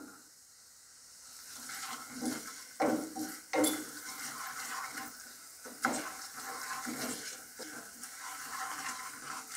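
A thick masala of chilli powder and asafoetida sizzling in oil in a pot while a wooden spatula stirs and scrapes through it, with a few sharper scrapes or knocks of the spatula against the pot.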